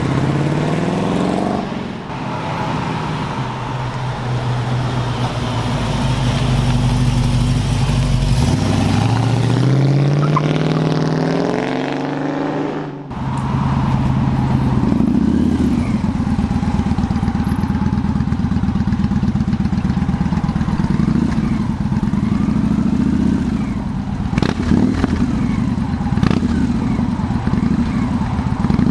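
American V8 car engines. One revs up with rising pitch, holds steady, then climbs again. About halfway the sound breaks off abruptly and gives way to a loud, steady engine running, with two sharp cracks near the end.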